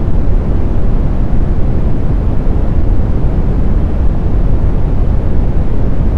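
Pure smoothed brown noise: steady, loud and deep, strongest in the bass and fading toward the treble, with no tones in it.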